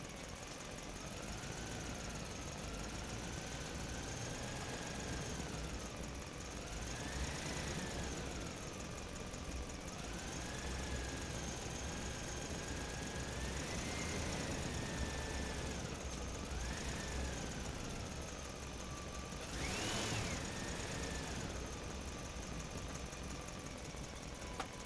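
A radio-controlled truck's small electric motor and gearing whining, the pitch rising and falling again and again as the throttle changes, with its sharpest, loudest rev about twenty seconds in.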